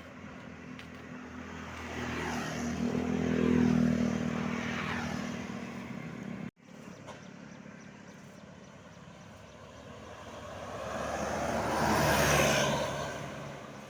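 Vehicles driving past on a road, one at a time. The first swells about three to four seconds in, its engine hum falling in pitch as it goes by. After an abrupt cut, a second vehicle swells and fades near the end, mostly tyre and wind rush.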